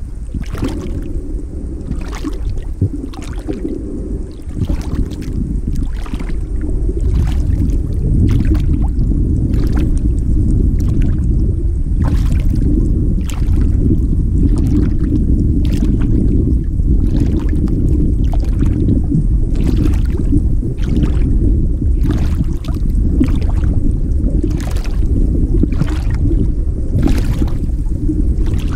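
Underwater ambience: a steady low rumble of moving water with scattered sharp clicks, about one or two a second.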